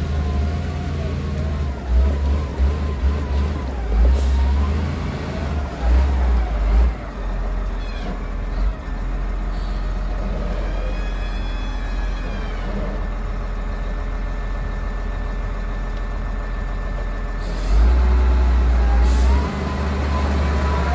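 LiuGong wheel loader's diesel engine running with a steady low rumble, revving up in surges a couple of seconds in and again near the end as the loader drives.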